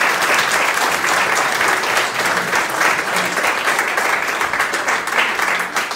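Steady applause from a choir and its audience, many hands clapping together.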